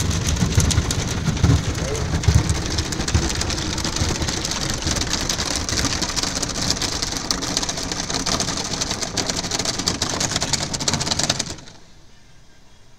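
Car-wash water jets spraying and spattering hard against the car's windshield and body, heard from inside the cabin as a dense crackling hiss like heavy rain. The spray cuts off suddenly near the end, leaving a much quieter background.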